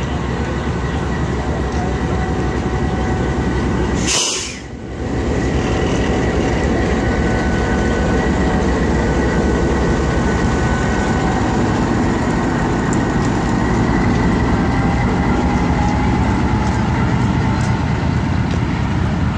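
GE U20C diesel-electric locomotive running steadily under power as it pulls out, its engine drone loud and even, with the passenger coaches rolling past behind it near the end. A brief crackle and dropout breaks the sound about four seconds in.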